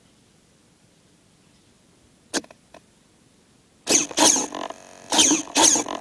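Brushless motor of a Traxxas Rustler RC truck being revved in short blips: a couple of light clicks a little over two seconds in, then about five quick, loud bursts of revving from about four seconds in.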